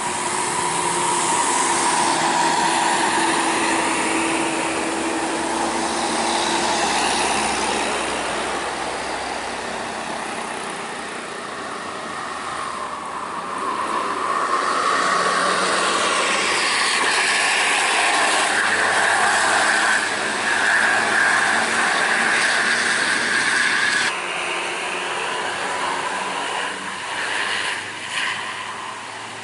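Tour buses passing and sounding telolet basuri musical air horns. Horn tones are held over engine and road noise, and the loudest tone cuts off suddenly about 24 seconds in.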